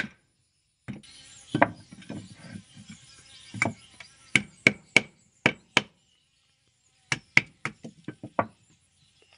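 Sharp knocks of a whetstone hammered onto the spine of a knife, driving the blade through a frozen red arowana, the fish still hard from the fridge. About a dozen blows, some in quick runs of two or three.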